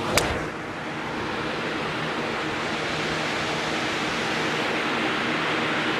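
A golf club strikes the ball once, a sharp click just after the start, over the steady rushing noise and faint hum of a bank of large electric fans blowing as wind machines.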